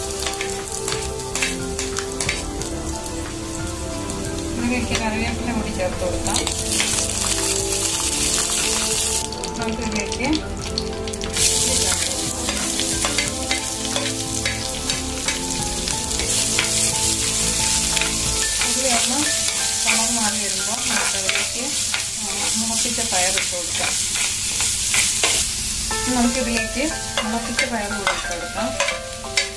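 Hot oil sizzling and crackling in an earthenware clay pot as dried red chillies and mustard seeds fry, with many sharp pops, then chopped onion and sprouted mung beans are tipped into the oil. The sizzle grows about six seconds in, thins briefly around ten seconds, and then stays strong.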